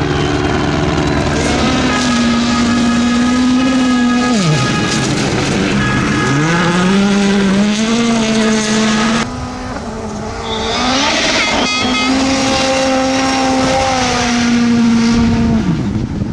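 Rally cars' turbocharged four-cylinder engines running hard at high revs on a gravel stage. The engine note drops sharply as the driver lifts about four seconds in, then climbs steadily as the car accelerates. A cut brings in another car's engine, which also drops off near the end.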